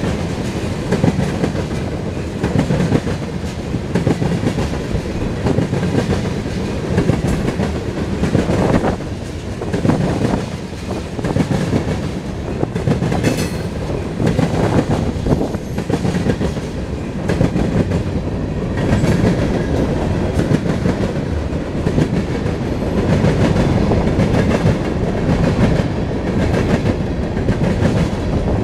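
Freight cars of a passing train rolling by at close range: steel wheels on the rails making a loud, steady rumble.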